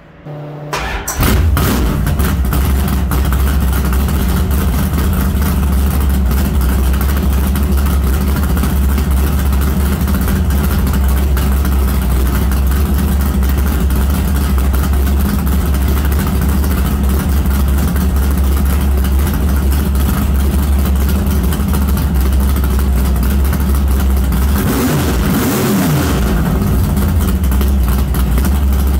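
A 1971 Dodge Dart drag car's 451 stroker big-block V8 starting up, catching about a second in, then idling loudly. It gets a brief rev of the throttle late on and settles back to idle.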